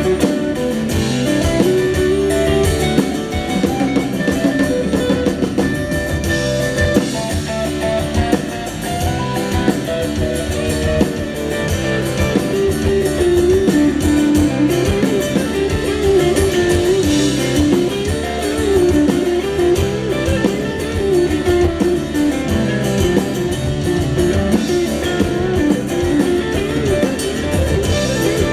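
Live rock band playing: electric guitars over bass and a drum kit.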